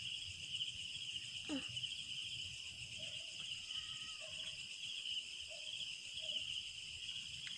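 Night chorus of crickets chirring steadily in a high, finely pulsing trill, with a short falling vocal sound about a second and a half in.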